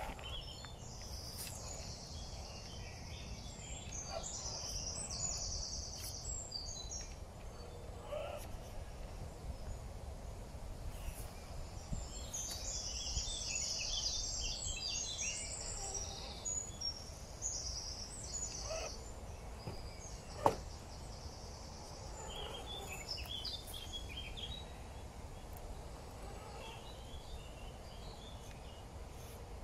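Birds chirping and trilling in quick bursts that come and go in three spells, over a steady low outdoor rumble. One sharp click sounds about twenty seconds in.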